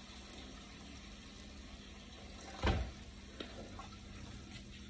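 Water poured from a glass electric kettle into a pan, a faint steady splashing, with a single thump a little before three seconds in.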